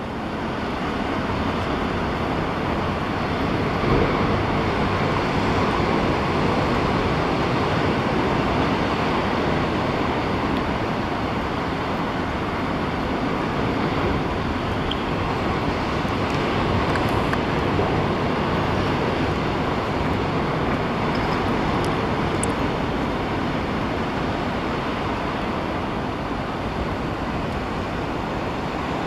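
Steady rushing noise of wind on the microphone and distant ocean surf, even throughout, with no distinct events.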